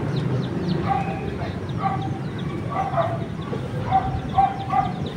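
A dog barking several times, about once a second, with small birds chirping throughout.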